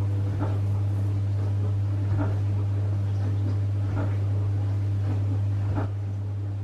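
Steady low electrical hum, with faint soft ticks about every two seconds.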